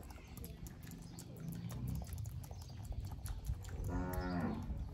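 Soft, scattered clicking and picking of a macaque grooming the hair on a man's arm. About four seconds in, a single short, low, pitched call lasting about half a second rises over it.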